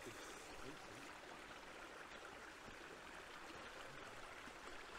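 A stream running: a faint, steady rush of flowing water.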